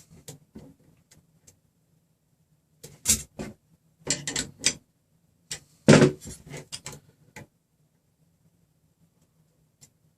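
Small metallic clicks and clatters of hardware being handled as a nut on the threaded rod is tightened a little further. They come in three short groups, about three, four and six seconds in.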